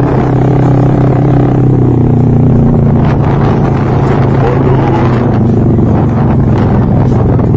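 Motorcycle engine running loud and steady, its pitch dipping slightly about two seconds in, with more rattle and noise mixed in from about three seconds on.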